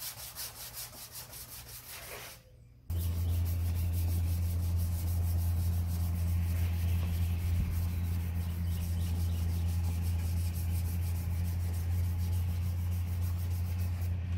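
Sandpaper on a thin sanding block rubbed back and forth by hand over a car trunk lid's high-build primer, block sanding it smooth. From about three seconds in, a steady low hum sits under the rubbing.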